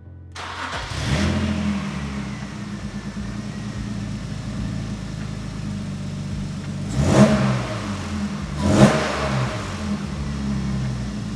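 BMW S52 straight-six engine in an E30 firing up and settling into a steady idle, now that the fitted remote fuel pressure regulator gives it fuel pressure. It is blipped twice with the throttle, a second and a half apart, past the middle.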